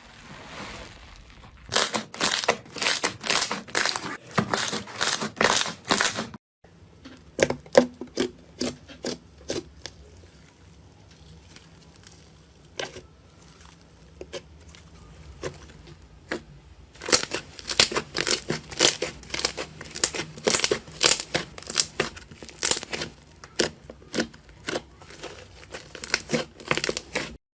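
Slime being squeezed and poked by hand, giving fast runs of crackling pops and clicks. The clicks thin out for a stretch in the middle, then come thick again for the last ten seconds.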